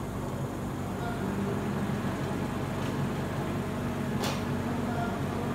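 Oxygen-fed ozone generator running, a steady low electrical hum, with a brief click about four seconds in.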